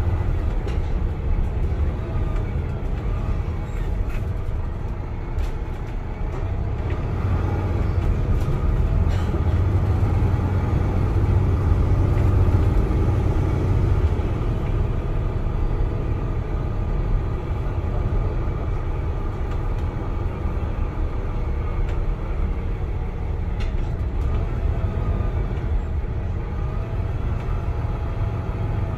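Cabin noise inside a MAN NL323F single-deck city bus under way: a steady low drone of the diesel engine and road rumble, with a faint whine that rises and falls in pitch. The sound swells a little around the middle, then eases.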